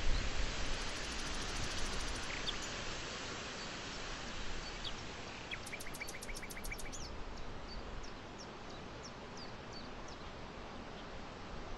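Outdoor birds chirping over a steady hiss of outdoor background noise. About six seconds in, one bird gives a quick run of about eight short, falling chirps, followed by scattered higher chirps. There is a low rumble at the very start.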